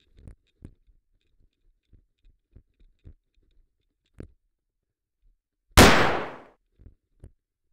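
A single loud gunshot bang, likely a dubbed sound effect for a cardboard toy gun, about six seconds in, dying away in under a second. Before it, faint scattered thumps and rustles of movement.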